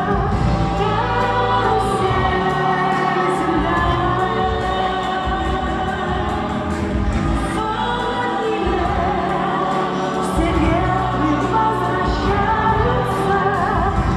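Singing with instrumental accompaniment: a musical-theatre song, several voices together over steady music.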